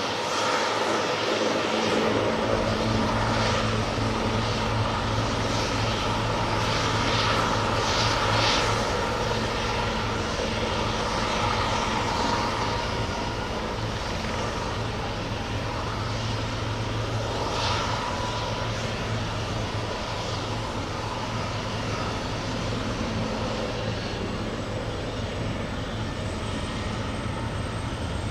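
Eurocopter AS332L1 Super Puma twin-turbine helicopter running: a steady engine whine and hum over a broad rush, with a deeper low drone strengthening about two seconds in.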